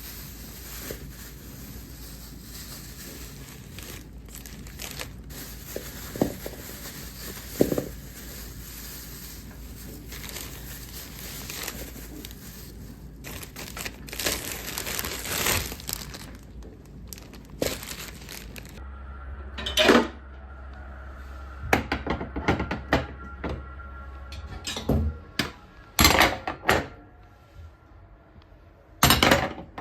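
Household handling noises from chores: a steady hiss with an occasional knock, then, from about two-thirds of the way in, a run of sharp knocks and clatters of things being handled and set down.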